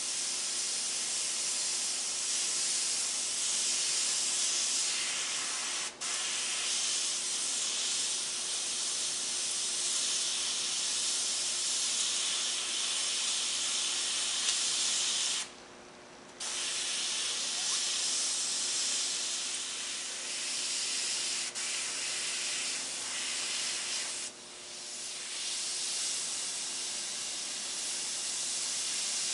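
Iwata gravity-feed airbrush hissing steadily as it sprays paint. The air stops briefly a few times as the trigger is let up, most fully for about a second near the middle.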